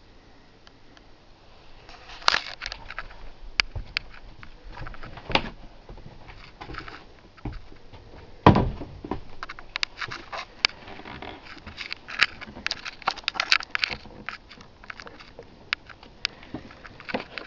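Handling and movement noise: scattered clicks, crackles and knocks that begin about two seconds in, with one heavier thump about eight and a half seconds in.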